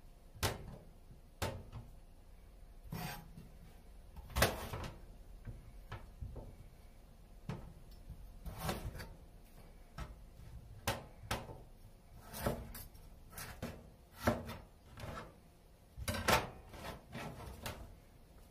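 Kitchen knife slicing burdock root on a cutting board: irregular knocks of the blade against the board, mixed with a few longer scraping strokes.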